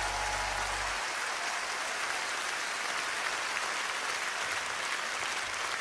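Large concert audience applauding steadily as the song ends; the last held low bass note of the accompaniment cuts off about a second in.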